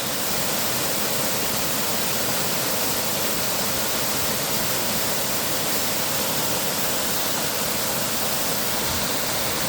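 Steady rushing of the Dzhur-Dzhur waterfall: falling water making an even, unbroken noise.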